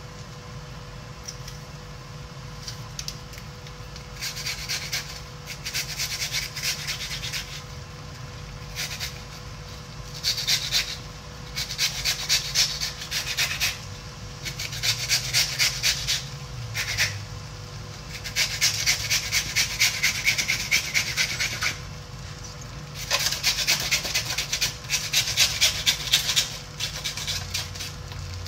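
A green pepper being grated on a metal grater, quick rasping strokes in bursts of one to three seconds with short pauses between them.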